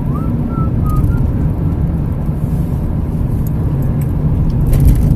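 Steady low rumble of a car in motion, heard from inside the cabin, with a faint brief whistle-like tone in the first second.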